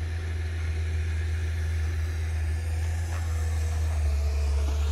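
Steady low rumble of a motor vehicle running, with a faint steady whine that shifts slightly in pitch in the second half.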